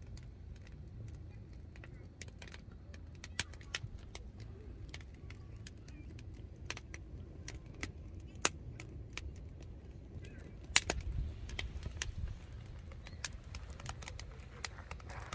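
Firewood burning, crackling with irregular sharp pops over a steady low rumble, the loudest pop about eleven seconds in.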